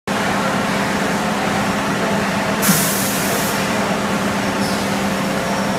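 5-gallon bottled water filling line running with a steady machine hum. About two and a half seconds in, a knock and a sharp hiss of released compressed air lasting about a second, with a fainter hiss near the end, as the pneumatic parts of the machine cycle.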